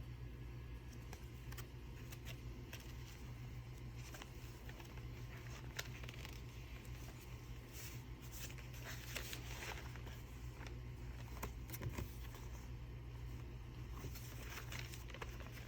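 Paper pages and tags of a handmade junk journal being turned and handled, giving soft rustling with scattered light clicks, over a faint steady low hum.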